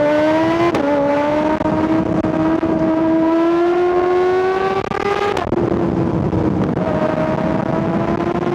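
Kawasaki ZX-6R's 636 cc inline-four engine and exhaust pulling under load, the pitch climbing slowly. The pitch makes a sharp short drop about a second in and again past halfway, at gear changes.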